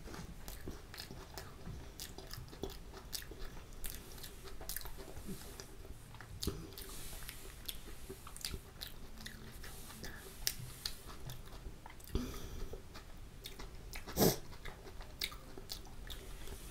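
Close-miked chewing of a mouthful of chole and kulcha: a run of soft, wet mouth clicks and ticks, with one louder mouth sound about fourteen seconds in.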